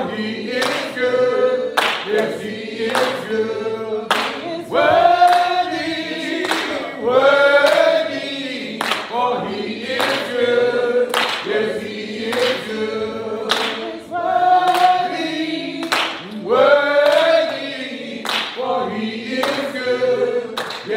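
A choir singing a gospel song with no instruments heard, over hand claps keeping a steady beat about once a second.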